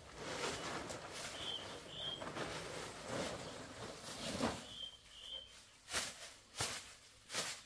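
Plastic tarpaulins rustling and crinkling as they are pulled off and dropped, with three sharp crackles near the end. A bird gives a short two-note chirp about every three seconds.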